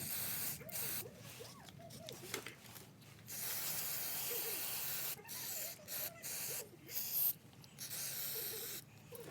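Spray hissing in repeated bursts, the longest lasting about two seconds near the middle, while the carburettor of a Robin EY21 engine is being cleaned.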